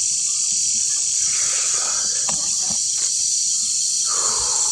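Dense chorus of night insects: a steady high-pitched shrill hum with no break.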